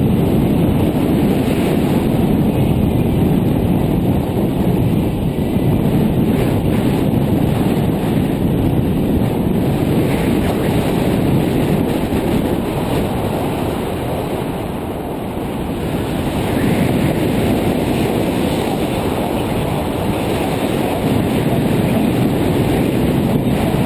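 Wind noise from the airflow of paraglider flight buffeting the microphone of a GoPro Hero 2 in an open housing: a loud, steady low rumble that eases a little about two thirds of the way through.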